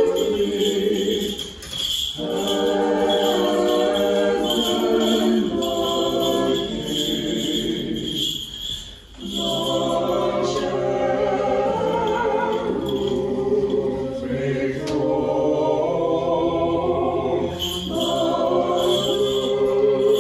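Small church choir singing an unaccompanied Orthodox liturgical hymn, with short breaks between phrases about two seconds in and again about nine seconds in.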